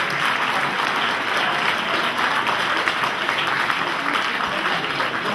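Theatre audience applauding, a steady dense clapping that keeps up evenly throughout.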